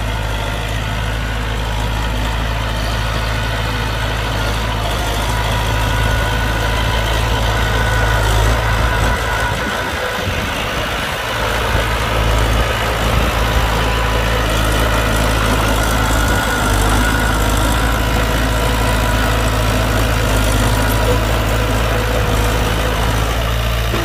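Diesel engine of a heavy construction machine, a dump truck or bulldozer, running steadily near idle with a deep, constant rumble. The low rumble drops away briefly about ten seconds in, then returns.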